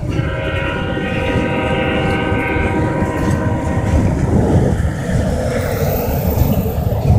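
Freight train passing: steady rumble and rattle of gondola cars on the rails, with a locomotive air horn sounding a held chord for about four seconds before cutting off.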